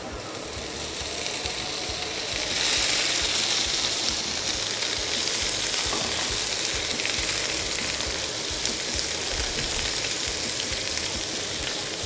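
Diced sausage sizzling in a hot frying pan, stirred with a wooden spatula. The sizzle grows louder about two and a half seconds in, then holds steady.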